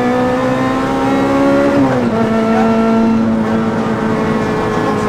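Honda Civic Type-R rally car's 2.0-litre four-cylinder engine heard from inside the cabin, pulling hard at high revs in one gear, its pitch climbing slowly. About two seconds in the pitch drops sharply at an upshift, and the engine holds high revs again as the car keeps accelerating on full throttle.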